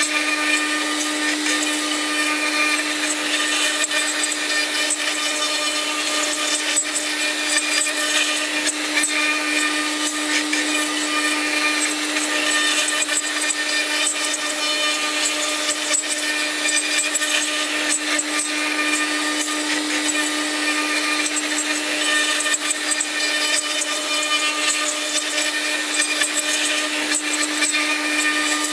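Spindle of an LH-8101 CNC router (machining center) running with a steady whine while a fine carving bit mills a relief into wood, with an even hiss of cutting.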